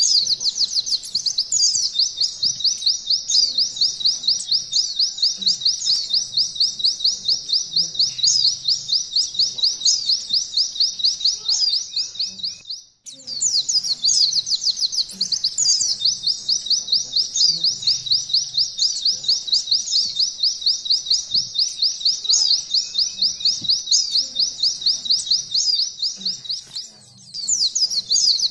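Pleci (white-eye) singing canary-style 'nembak' song: long, fast trills of rapidly repeated high notes, broken by a short pause a little before halfway and another shortly before the end.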